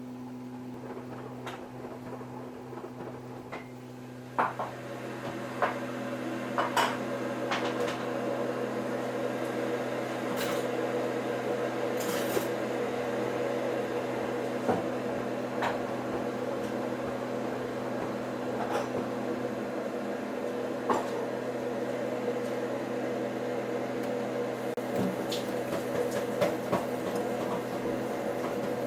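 Samsung EcoBubble front-loading washing machine running a wash cycle: a steady hum that grows louder about four seconds in, with scattered clicks and knocks.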